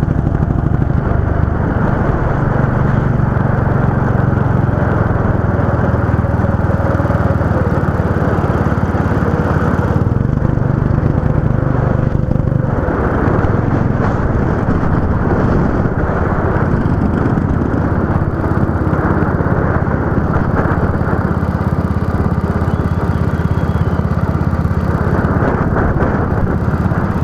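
Go-kart engine running continuously, heard on board, its pitch slowly rising and falling as the revs change.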